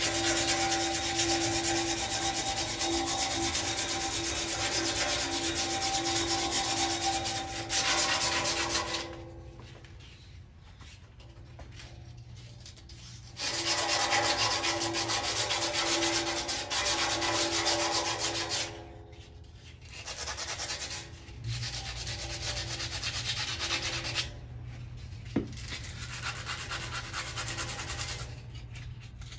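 A strip of abrasive cloth worked back and forth around the steel tubing of a cart frame, scrubbing off mill scale: a rasping rub with a faint steady ringing tone. It comes in two long loud stretches with a pause between, then goes on more quietly in the last third.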